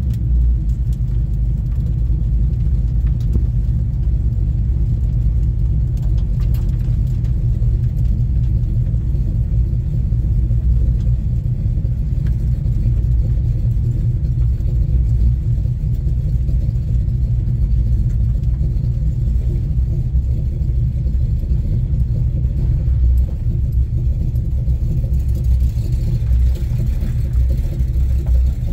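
1970 Chevrolet Chevelle's engine running steadily: a deep, even sound with no revving.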